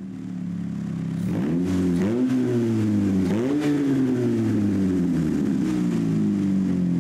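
Chevrolet Cobalt Ecotec inline four-cylinder engine on its first start, running through a temporary downpipe with two catalytic converters. It is revved up three times in quick succession in the first few seconds, then held at a raised warm-up speed that slowly settles to a steady drone.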